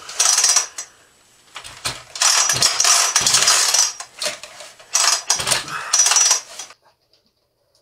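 Metal clattering and scraping in irregular bursts, as of tools or metal parts handled at a workbench. It cuts off abruptly near the end.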